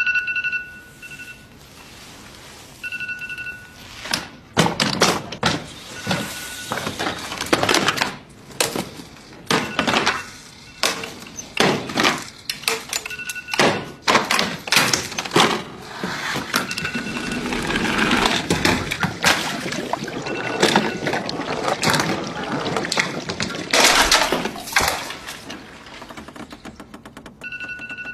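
Homemade chain-reaction machine of household objects running: a long string of knocks, clatters and things falling and rolling, with a short electronic beep sounding again every few seconds.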